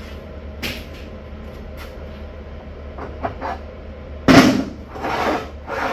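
Steel parts being handled on a steel welding table: a few light clicks and knocks, then a loud metal clank about four seconds in, followed by two shorter clattering scrapes, over a low steady hum.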